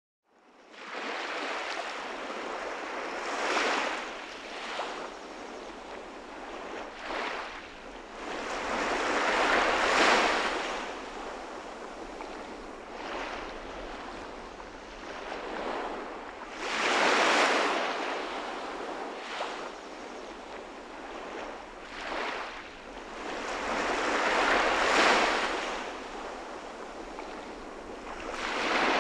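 Sea waves washing onto a shore, the surf swelling and fading every several seconds.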